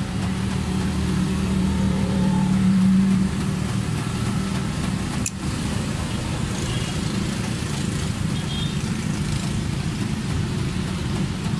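Steady low hum of a motor vehicle engine running, louder for the first three seconds, with a single sharp click about five seconds in.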